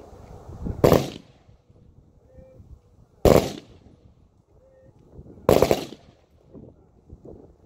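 Three loud gunshot reports about two and a half seconds apart, each a sharp crack with a short tail: a three-volley salute.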